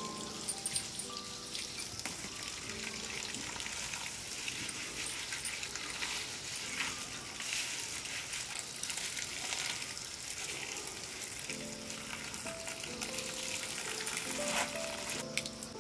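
Tap water pouring and splashing onto stinging nettle leaves in a plastic basket as they are rinsed and turned over by hand, a steady hiss throughout. Soft background music comes in near the end.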